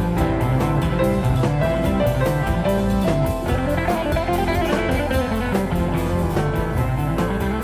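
Instrumental gospel band music with a steady beat, no singing.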